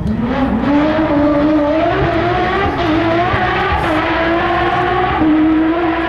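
A Porsche 997 GT3 rally car's flat-six engine at full throttle, revving hard. The pitch climbs over the first second, wavers, then holds high and steady.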